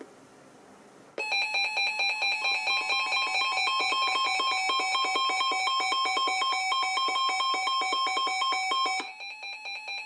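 Several NOAA weather radios sounding their alert alarms together, signalling a tornado warning: rapid pulsing beeps in several pitches that start about a second in. Near the end most of them stop, leaving a fainter beeping.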